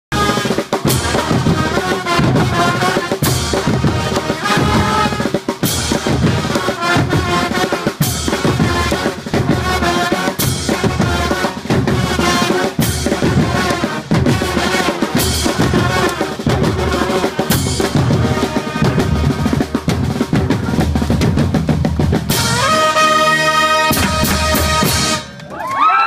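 Street brass band playing a loud, drum-heavy groove: bass drums, drum kit and cymbals driving under the horns, with big accented hits about every two and a half seconds. Near the end the horns hold one long chord over the drums, then the band stops.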